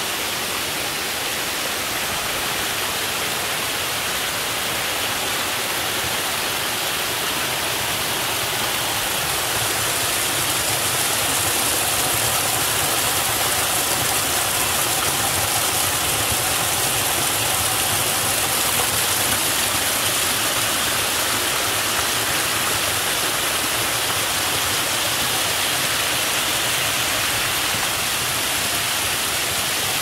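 Water rushing over a stepped rock waterfall cascade: a steady, dense splashing hiss that grows a little louder about a third of the way in.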